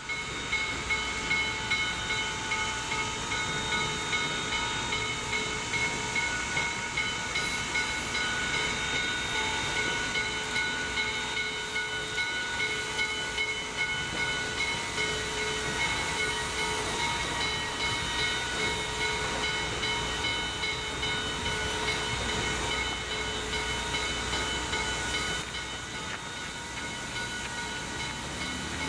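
Steam locomotive standing with steam hissing steadily, a constant whine of several high tones running over the hiss.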